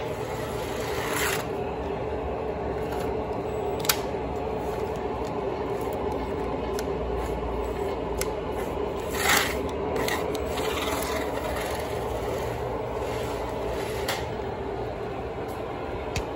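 Lionel O gauge model trains and Carrera Go Plus 1/43 scale slot cars running together: a steady scraping, rumbling clatter of wheels on track and small electric motors, with a few sharp clicks, the loudest about nine seconds in.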